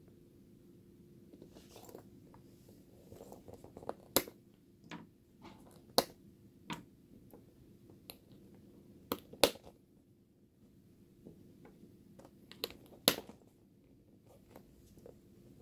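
Snap-on buttons being popped off and pressed onto the metal studs of a handbag flap: a series of sharp clicks, a few in quick pairs, with rustling handling of the bag between them.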